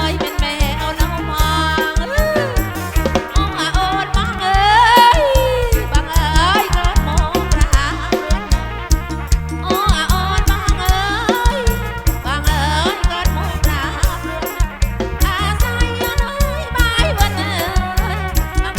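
Live kantrum folk band music played through a loud PA, with a heavy, steady drum beat and a gliding melody line.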